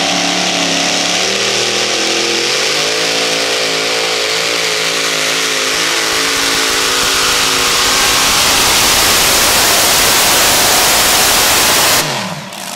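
Multi-engine supercharged modified pulling tractor running flat out under load, its engines' pitch climbing over the first couple of seconds and then holding while the sound grows louder. Near the end the engines cut off suddenly and their pitch falls away as they spin down.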